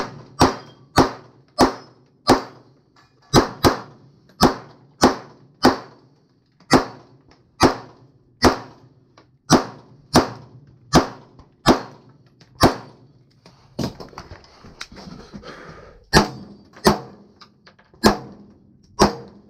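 A fast string of about two dozen gunshots, one or two a second, with a pause of a couple of seconds about two-thirds of the way through before the shooting resumes.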